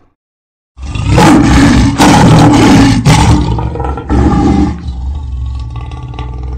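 Lion roaring: a loud roar begins about a second in, comes in several surges, then tails off quieter.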